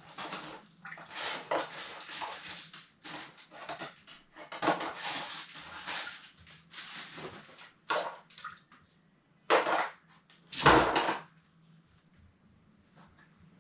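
Copper plumbing fittings and tools being handled and rummaged through, with irregular metallic clinks, scrapes and rustling. Two louder knocks come near the end, the second with a dull thud, and then the handling goes quiet.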